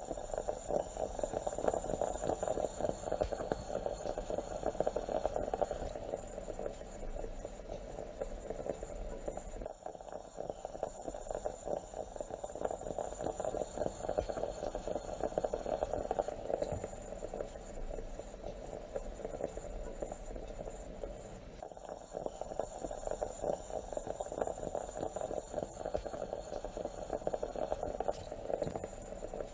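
Stovetop moka pot gurgling and sputtering steadily as the coffee bubbles up into the top chamber.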